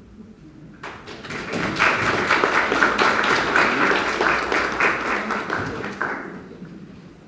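Audience applauding. The clapping builds about a second in, holds, and dies away near the end.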